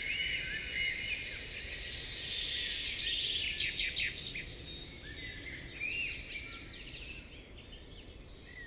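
Birds chirping and singing, many short calls overlapping, with a quick trill a little past the middle.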